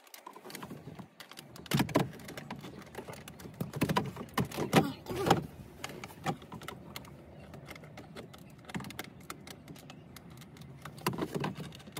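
Small plastic clicks, knocks and rattles as wiring connectors are worked off the back of a plastic console trim panel with a small screwdriver, with louder clusters about two seconds in, around four to five seconds in, and near the end.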